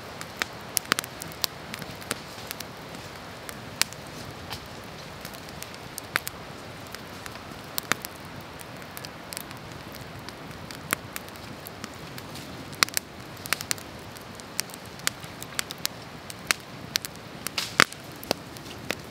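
Wood campfire crackling, with sharp irregular snaps and pops over a steady soft hiss.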